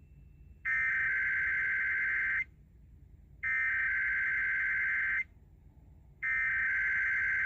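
Emergency Alert System SAME header: three bursts of rapid, screechy data tones, each about a second and a half long with about a second's pause between. This digital header opens an EAS monthly test.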